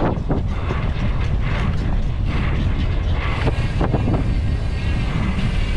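Wind buffeting the camera microphone as a bicycle is ridden fast along a paved road in a wheelie, with steady tyre and road rumble and irregular clicks and rattles from the bike.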